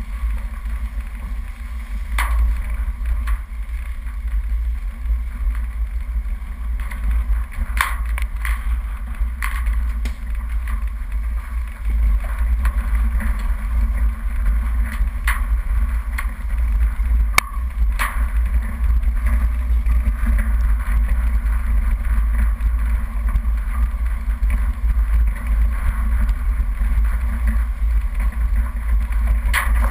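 A four-wheel-drive vehicle driving slowly down a rough dirt forest track: a steady, loud low rumble of engine and tyres, with occasional sharp knocks as it jolts over stones and ruts.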